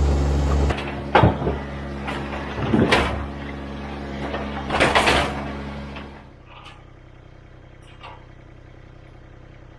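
An engine running steadily, with three loud clunks about two seconds apart; about six seconds in the engine sound drops away, leaving a faint hum.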